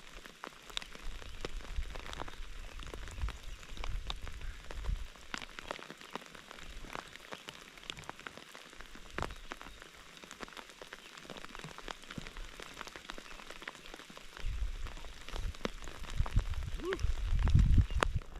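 Steady rain pattering, with many scattered single drops ticking. Low rumbling comes and goes in the first few seconds and again near the end.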